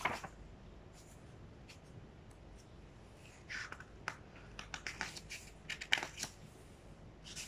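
Faint rustling of paper with small clicks as the pages of a poetry book are leafed through: a short rustle right at the start, then scattered rustles and clicks in the second half.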